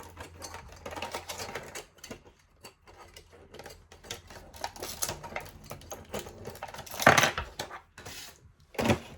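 Small toy figures and their plastic packaging being handled and unwrapped: a quick run of small clicks and crinkles, with two louder crinkling rustles about seven seconds in and near the end.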